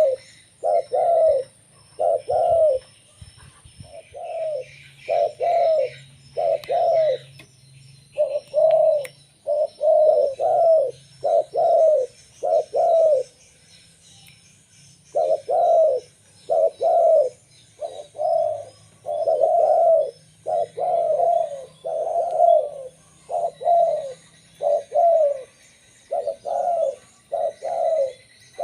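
Zebra dove (local perkutut) singing: quick series of short, rolling coos repeated phrase after phrase, with a longer pause of about two seconds near the middle. Faint higher chirps of small birds sound behind it in the first seconds.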